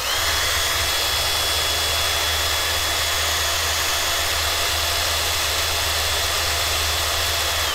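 Cordless drill running at full speed, spinning an unpowered brushless RC motor clamped in its chuck, with a steady high whine over the whir of the drill's gearbox. It shuts off at the very end.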